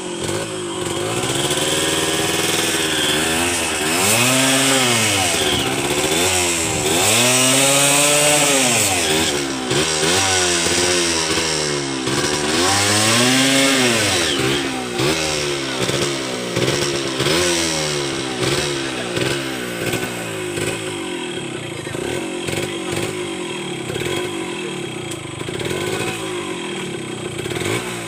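Yamaha two-stroke dirt bike engine revved in repeated surges, its pitch rising and falling every couple of seconds, then running at a steadier, lower speed through the last third.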